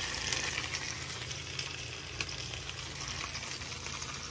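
Buttered grilled cheese sandwich with pepperoni sizzling inside a closed waffle iron: a steady frying crackle with scattered small pops.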